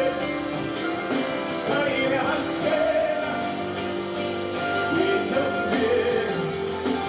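Worship music: voices singing held, gliding notes over steady instrumental accompaniment.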